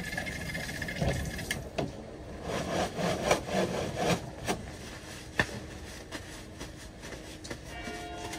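Washing up by hand at a small sink: scrubbing and rubbing with scattered knocks, busiest in the middle and quieter in the last few seconds. A thin steady whine cuts off about a second and a half in.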